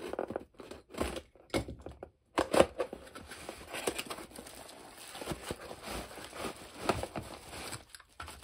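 Cardboard box being opened by hand: the end flap is pulled and torn open with sharp snaps and scrapes. Then packing is handled, with plastic wrap crinkling as the contents come out.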